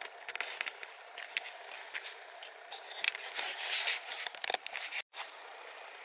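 Leaves and twigs rustling and scraping close to the microphone in a flowering shrub: irregular crackles that grow louder past the middle, cut by a brief dropout near the end.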